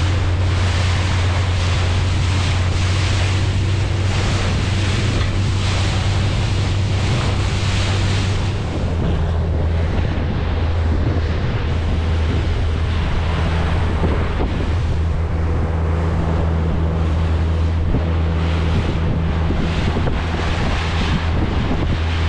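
Outboard motor of a fishing boat running at speed with a steady low drone, its pitch shifting slightly about nine seconds in, under heavy wind noise on the microphone and the rush of spray and water along the hull.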